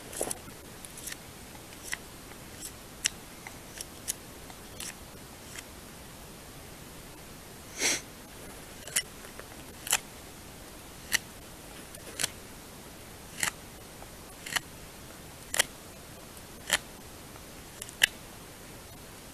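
A Mora knife whittling a wooden stick: short, sharp cutting strokes. They are sparse and uneven at first, then come about once a second through the second half, with one longer drawn cut about eight seconds in.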